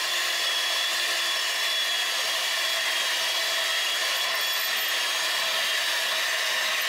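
Electric hand mixer starting up and running at one steady speed with a steady whine, its twin beaters mixing lemon cake batter in a glass bowl.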